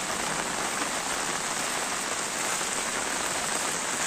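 Heavy rain falling steadily onto a flooded street, a continuous hiss with no break.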